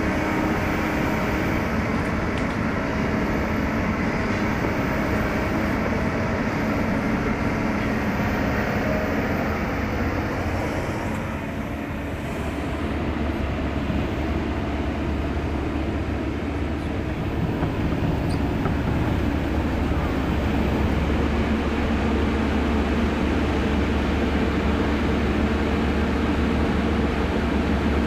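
Heavy diesel engines of hydraulic excavators working a truck recovery, a steady low rumble that eases briefly about twelve seconds in and then builds again.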